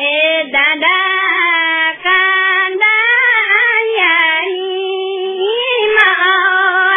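A single high-pitched voice singing unaccompanied in long held notes that waver and bend, with short breaks between phrases.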